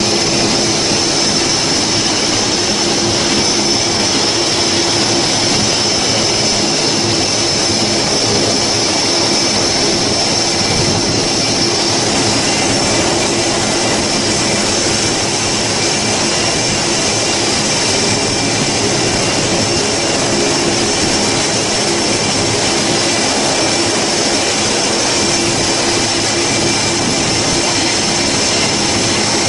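Twin Allison T56 turboprop engines of a Grumman C-2 Greyhound running steadily on a carrier catapult before launch: a constant loud propeller drone with a high turbine whine over it.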